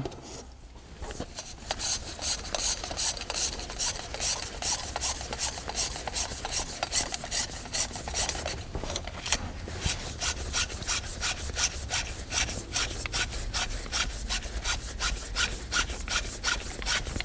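Rhythmic metal-on-metal rasping, about four strokes a second, as the FX Wildcat MkI's air cylinder is twisted by hand and unscrewed from the action along its long thread.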